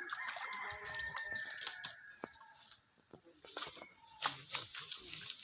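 A rooster crowing: one long, drawn-out call of about two and a half seconds at the start, with scattered short clicks and taps around it.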